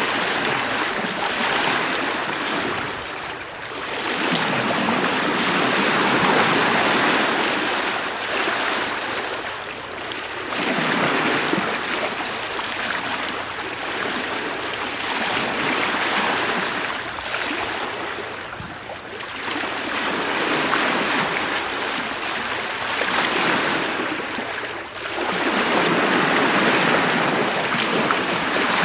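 Bow wave of a tall sailing ship under sail at about 4 knots, heard from the bowsprit: water rushing and washing past the bow, swelling and easing in about four surges every five to seven seconds, with some wind on the microphone.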